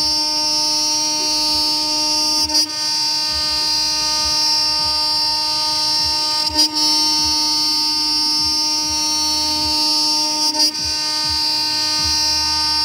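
2.2 kW CNC router spindle running at a steady high whine as its end mill cuts a 20 mm aluminium plate. About every four seconds the tone breaks briefly with a click, three times in all.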